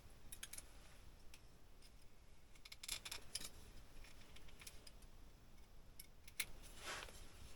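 Faint, scattered small clicks and light clinks of ice-fishing tackle being handled, with a short rustle near the end.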